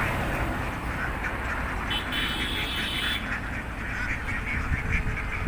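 A flock of domestic ducks quacking, many overlapping calls at once in a continuous chatter.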